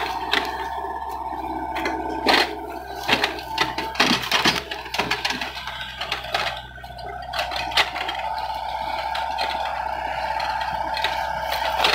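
Doosan mini excavator running steadily with a constant whine over a low engine hum, while its bucket works in flooded mud, giving scattered sharp clanks, knocks and splashes, most of them in the first half.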